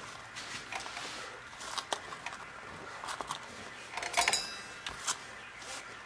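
Small clicks and rustles of hands handling a wire and a soldering iron on a workbench, with a louder brief clatter about four seconds in.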